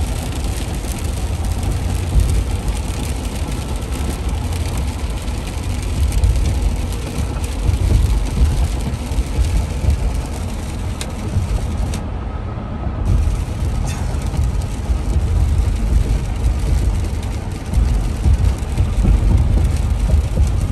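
Road noise inside a vehicle driving on a wet highway in the rain: a heavy, uneven low rumble under the hiss of tyres on wet pavement.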